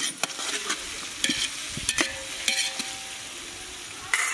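Flat metal spatula scraping and stirring raw chicken and vegetables around a large metal pot, over a steady sizzle of frying in vegetable ghee (Dalda). Several scraping strokes, with a couple of sharp clinks of metal on the pot.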